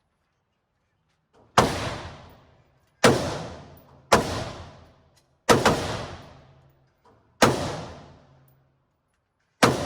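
Rifle fired six times, one shot at a time at uneven gaps of one to two seconds, each report sharp and followed by about a second of echo dying away.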